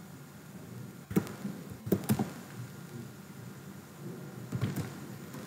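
A few computer keyboard keystrokes, in two short clusters: about a second in, and again near the end, over faint room hiss.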